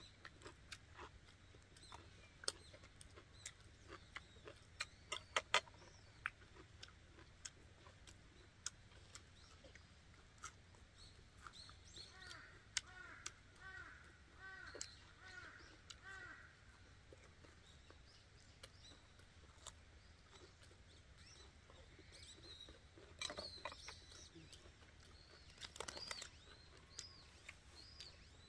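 Quiet chewing and small mouth clicks of people eating, with birds chirping in the background: a quick run of repeated chirps in the middle and a few more high calls near the end.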